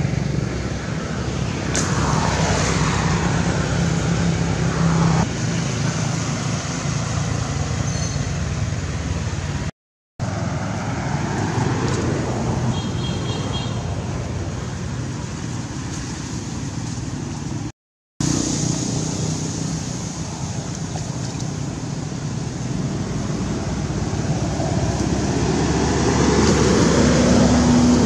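Steady road traffic noise, with motor vehicles passing and the engine pitch sweeping down as they go by. The sound drops out briefly twice, and a short steady low tone sounds near the end.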